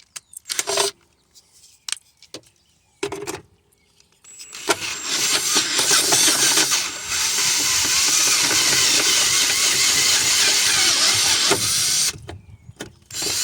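Power drill running steadily while boring a hole, starting about four seconds in and stopping abruptly about a second before the end. A few short knocks and brief handling noises come before it.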